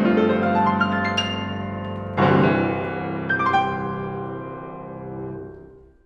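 Solo piano playing a short closing phrase of sustained chords and a few higher notes. The last chord is struck about two seconds in and rings, dying away to silence near the end.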